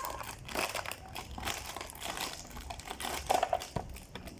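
Packaging being handled during unboxing: wrapping crinkling and rustling in irregular crackles, with a louder burst about three seconds in.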